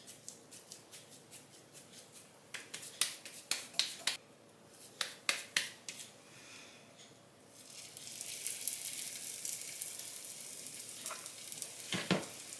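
Oiled hands patting and slapping a ball of soft arepa dough: a run of quick light smacks. About halfway through, a steady high sizzle of oil heating in a frying pan sets in. Near the end a spoon scrapes dough from the bowl.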